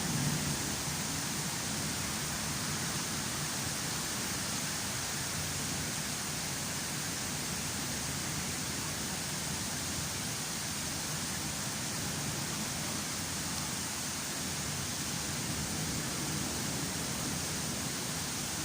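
Heavy rain pouring down steadily during a thunderstorm, an even hiss with no thunderclaps.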